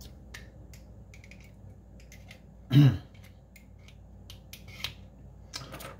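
Small scattered clicks and taps as electrolytic capacitors are handled and their leads pushed through the holes of a circuit board. One brief vocal sound, the loudest thing, comes about three seconds in.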